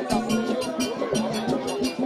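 Afro-Cuban Santeria ceremonial music: quick, even percussion strokes, about five a second, under group chanting.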